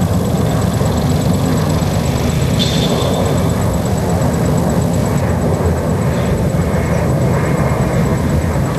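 Ilyushin Il-76 transport aircraft passing low overhead, its four turbofan engines giving a steady, low rumble.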